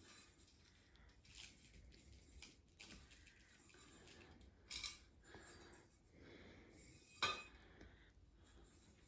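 Faint clicks and knocks of a flat-pack coffee table's parts being handled as a leg is taken off, scattered over near silence. The loudest is a short knock about seven seconds in.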